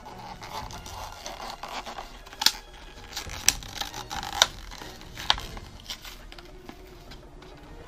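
Clear plastic blister being pried and peeled away from a cardboard toy backing card, crinkling, with four sharp cracks about a second apart in the middle.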